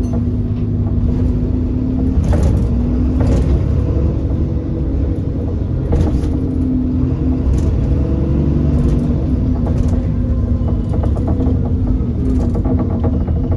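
Alexander Dennis Enviro400 double-decker bus on a Trident chassis running with a steady engine drone and low rumble, broken by several sharp knocks at irregular intervals: the knocking sound the bus is noted for.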